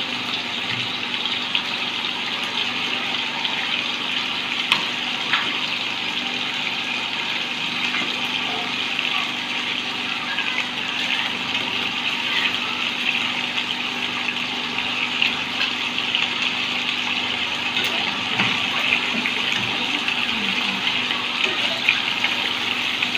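Fish pieces shallow-frying in hot oil in a wok, a steady sizzle, with a few sharp clicks as metal tongs turn the pieces.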